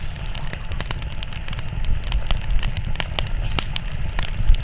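Firewood burning, crackling with many irregular sharp pops over a low rumble of flames. The loudest pop comes near the end.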